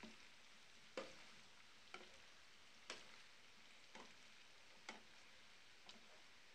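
Potato chunks frying faintly in a pan while a plastic spatula stirs them, with light taps of the spatula against the pan about once a second.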